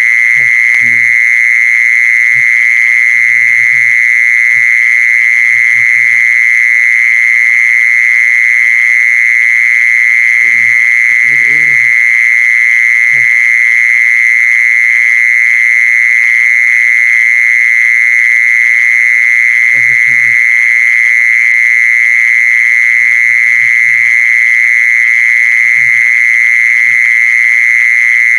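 Cicada (the 'jee-son' of Isan) calling: a loud, unbroken high buzz that holds one steady pitch. Short low croaks come and go underneath it a few times.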